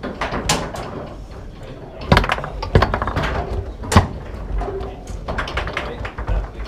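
Foosball in play: hard clacks of the ball being struck by the plastic player figures and knocking off the table, with lighter rattles of the rods between them; the sharpest knocks come about two, three and four seconds in.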